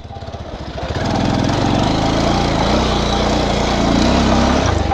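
Bajaj Pulsar 220's single-cylinder engine pulling the motorcycle along a dirt road. The throttle opens in the first second and the engine then runs steadily under load.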